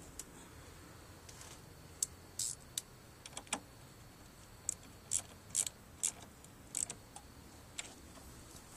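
Car battery's negative terminal clamp being refitted and tightened on its post: a series of short metallic clicks and scrapes, mostly high-pitched, starting about two seconds in.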